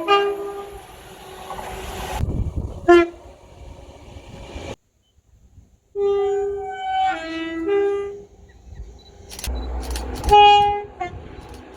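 A string of short train horn recordings, cut together abruptly with a second of silence in the middle. Short blasts come near the start and at about three seconds, then a horn alternating between two pitches, then a few sharp clicks and a last horn blast near the end.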